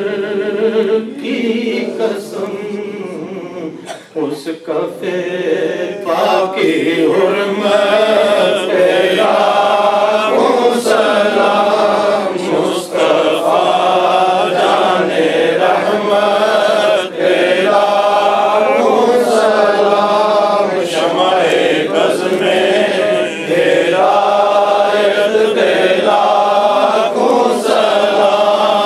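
Men chanting a devotional Islamic recitation together through a microphone, the voices growing louder and fuller about six seconds in.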